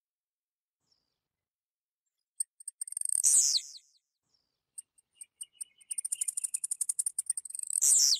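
Blue-black grassquit (tiziu) singing. A few high, quickening clicks lead into a short, loud high note sliding downward about three seconds in. Later, scattered ticks speed up into a rapid run that ends in a second downward-sliding note near the end.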